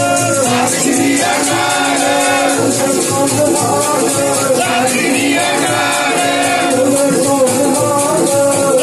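Sikh kirtan: a male voice sings a devotional hymn over sustained harmonium and electronic keyboard chords, with a steady percussion beat.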